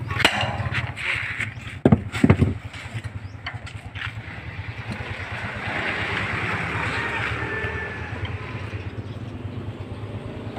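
Two sharp metal knocks about two seconds in, a steel bar striking the frame of a one-bagger concrete mixer as it is taken apart to reach a seized bearing. A steady low engine drone runs underneath, with faint voices.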